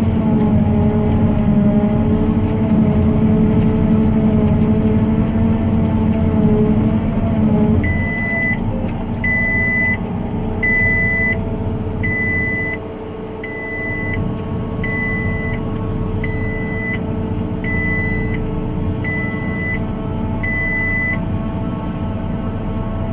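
John Deere self-propelled forage harvester running under load in the cab. About a third of the way through, its note drops as the metal detector stops the feed, and an alarm gives ten high, even beeps, about one every 1.4 seconds, warning that ferrous metal has been detected in the crop.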